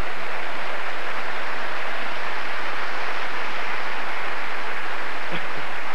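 Audience applauding steadily for several seconds.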